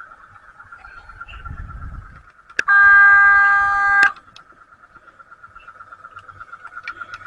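A model locomotive's horn sounds one toot lasting about a second and a half, a little over a third of the way in. Under it runs a steady, fast-pulsing hum, with a low rumble just before the horn.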